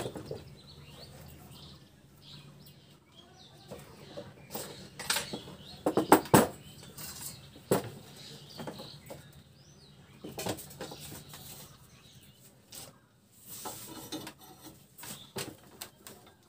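Irregular metal clicks and clinks from a homemade screw puller pressing the shaft out of an e-rickshaw BLDC motor's magnet rotor: the nut and bar turning on the threaded rod and knocking against the steel frame. The clicks are loudest and closest together about five to six seconds in.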